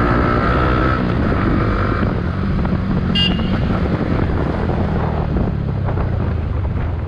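A motorcycle running at road speed, its engine note under road and wind noise, with a brief high beep about three seconds in.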